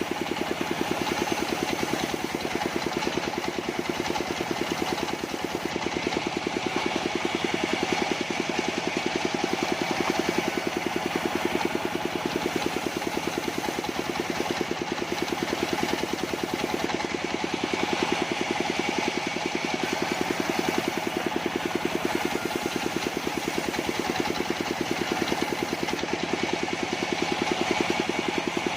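Engine of a portable sawmill running steadily at an even speed, with a fast regular pulsing.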